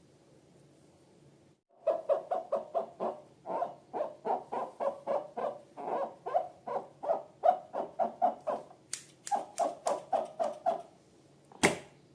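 Hands working slime and balloons: a quick series of short, pitched squelching pulses, about three or four a second, that stops shortly before one sharp click near the end.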